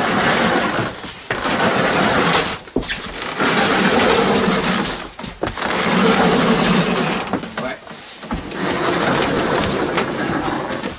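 A heavy tracked motorized towing sled being pushed and dragged by hand across wooden floorboards: its track and frame scrape and rumble over the boards in several loud surges with short pauses between the shoves.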